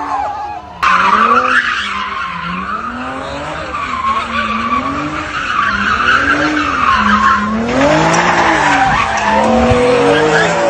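Car doing donuts: tyres squealing and skidding on pavement while the engine note swoops up and down about once a second. It begins abruptly about a second in.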